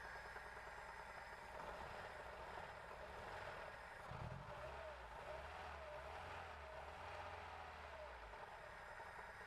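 Faint, steady running of a car engine, a low hum that grows a little stronger for a few seconds in the middle.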